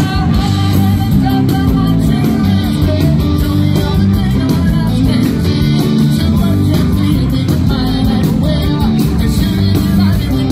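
Rock band playing live, heard from within the audience: electric guitars, bass and drums with singing.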